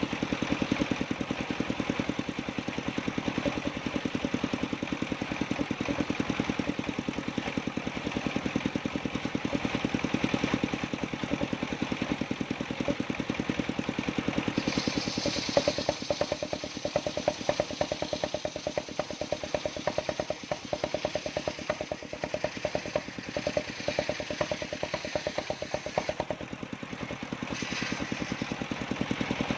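Engine driving a mobile circular sawmill, running steadily with a fast, even chugging pulse. About halfway in a higher hiss joins it for some ten seconds, dropping out briefly near the end.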